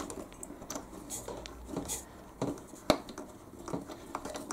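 A pointed hand tool worked into a thin plastic boat hull to start a hole: irregular scraping and small clicks, with one sharp click about three seconds in.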